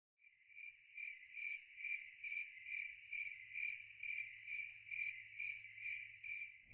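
A cricket chirping, one high note pulsing evenly about two to three times a second.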